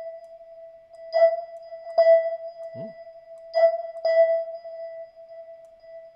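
A software keyboard instrument in Logic Pro, with an electric-piano-like tone, playing one high note over and over: four strikes at uneven gaps, each left ringing.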